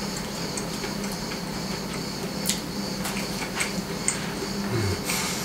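A steady low hum with scattered light clicks and taps from handling things on a kitchen counter.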